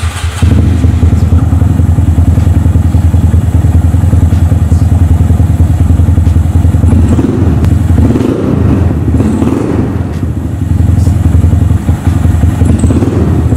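Honda Monkey 125's single-cylinder engine running through its Yoshimura exhaust, with the MNNTHBX intake fitted. It makes a loud, rapid, steady firing pulse that swells briefly a couple of times, in the middle and near the end.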